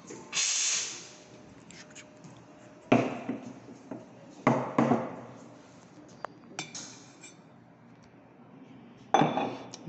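A short hiss from the espresso machine's steam wand being purged, then a stainless steel milk pitcher knocked on a wooden counter several times to settle the foam of the steamed milk, with a few light clinks as it is handled and swirled.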